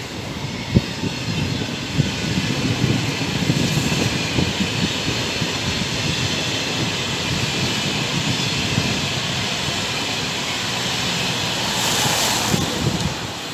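SNCF electric multiple-unit passenger train passing close by at speed: a steady rumble and rush of wheels on rail, with a sharp click about a second in and a brief swell near the end as the coupled sets go by.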